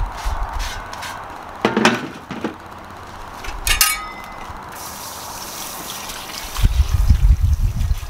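Water from a garden hose running as a spade and trowels are rinsed and wiped by hand, with two sharp knocks as the metal spade is handled, and a spell of hissing spray a little past the middle.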